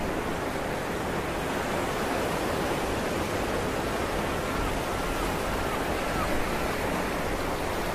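Steady rushing noise of water, like an underwater ambience. A little past the middle, a faint run of five short chirps about half a second apart.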